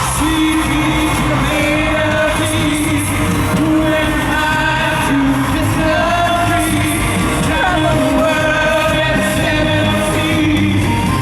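Live pop music recorded from the audience in an arena: a singer holding long, wavering notes over the band.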